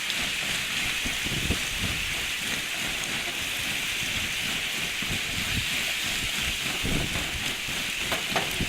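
Lake ice sheet shoving ashore: a steady crackling, tinkling hiss of ice plates and shards breaking and sliding over one another, with scattered low crunches.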